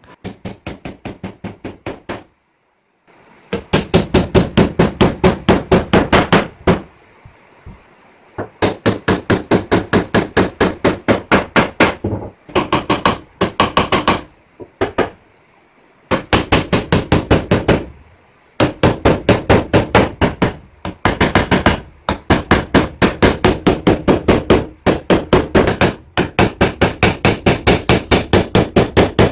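Hammer driving nails into wooden boards in runs of rapid blows, about six a second, broken by short pauses between runs.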